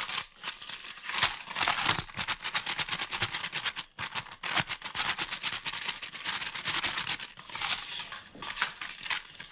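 Brown paper mushroom bag crumpled and shaken by hand to mix the flour and paprika inside, its paper crackling in quick, dense rustles with a brief lull about four seconds in.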